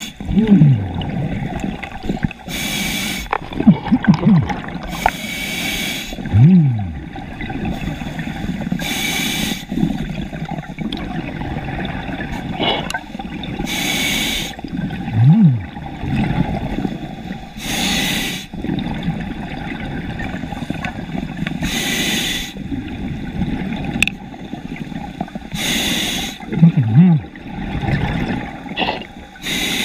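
Scuba diver breathing through a regulator: a short hissing inhale about every four seconds, with exhaled bubbles gurgling between breaths.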